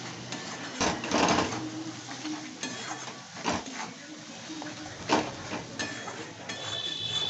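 Metal spatula scraping and knocking in a kadai as ground spices are stirred into frying onions and ginger-garlic paste, a handful of separate strokes.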